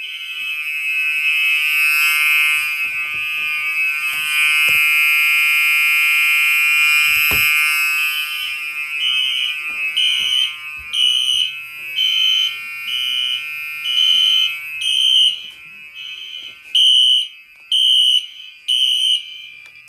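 Fire alarm horns sounding, set off by a magnet test of a smoke detector. A steady high horn tone for about the first nine seconds, then the horns pulse at roughly one and a half beats a second. There is a single knock about seven seconds in, and the alarm cuts off at the end.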